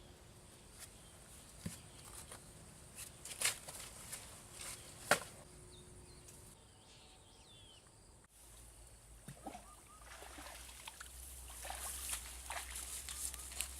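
Fish pond water trickling and sloshing, with a few short splashes in the first half and busier splashing in the second half.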